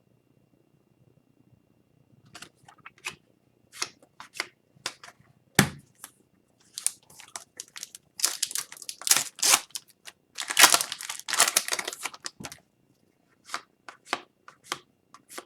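Trading card packs being torn open and the wrappers and cards handled: scattered crinkles and clicks, with one sharp knock about five and a half seconds in and a longer run of tearing and crinkling in the middle.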